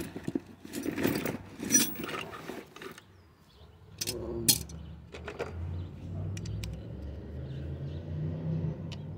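Metal clinking and rattling as the Honda HR215 mower's carburetor and its linkage rods are worked loose and slid off the intake studs, in a cluster over the first three seconds and a few more clicks about four to five seconds in. A steady low hum follows.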